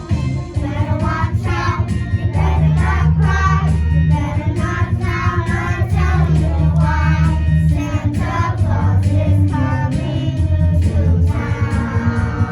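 Children singing a song to instrumental accompaniment with a strong bass line.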